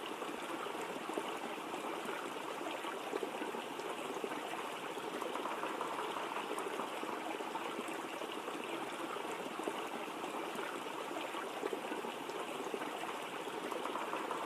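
Waterfall water rushing steadily, an even, unbroken wash of noise.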